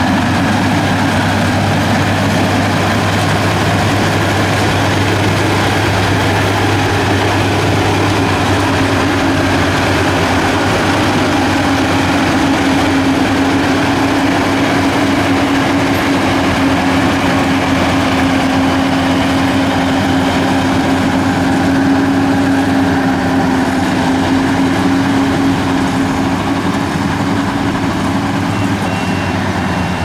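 Yanmar YH850 rice combine harvester running steadily, a constant low engine hum with a higher steady tone that comes in a few seconds in and drops away near the end.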